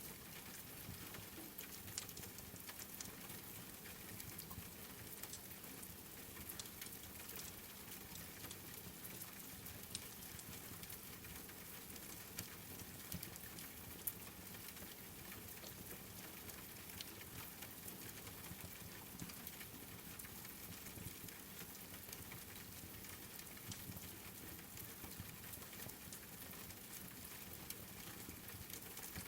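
Steady rain with a crackling wood fire: an even hiss dotted with scattered sharp ticks and pops, two of them louder, about 2 and 14 seconds in.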